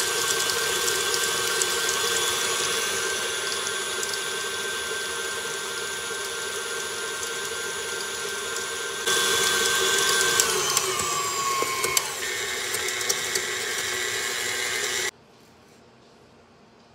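KitchenAid Artisan stand mixer motor and gearbox running with a steady whine while beating cookie dough. About ten seconds in its pitch falls as the motor slows, and it then runs at a new pitch before cutting off suddenly near the end.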